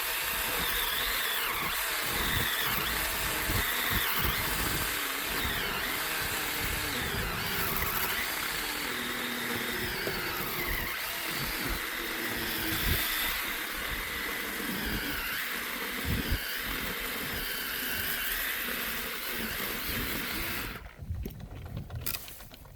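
Small petrol engine running steadily while firewood logs are worked, its pitch rising and falling with the load; it stops abruptly near the end.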